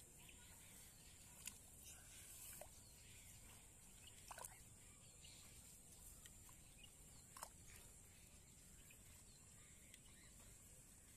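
Near silence: faint outdoor background with a steady high hiss and a few faint, short chirps or ticks.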